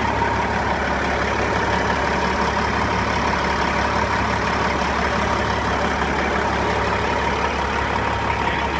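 Caterpillar 3406E inline-six diesel in a Peterbilt 379 idling steadily and evenly, with a thin steady whine above the engine note.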